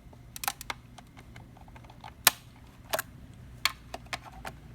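A handful of sharp, irregular clicks and taps from handling the black plastic adjustment piece and parts of an opened-up coffee grinder during calibration, the loudest a bit over two seconds in.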